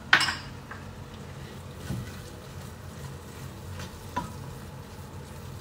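Silicone spatula stirring a knob of butter into cooked quinoa in a stainless steel pot: a sharp clack against the pot just after the start, then soft scraping with light knocks about two and four seconds in.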